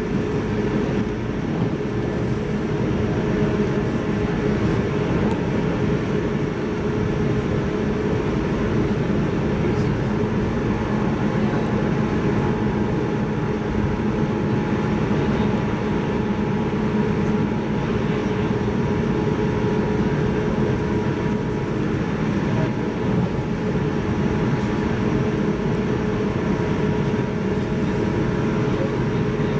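Interior running noise of a JR 185 series electric train: a steady rumble of wheels on rail with a few constant humming tones from the train's equipment, its speed holding steady.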